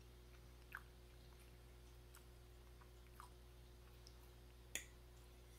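Faint chewing on a bite of soft fried sweet plantain, with a few quiet mouth clicks and one sharper click near the end, over a low steady room hum.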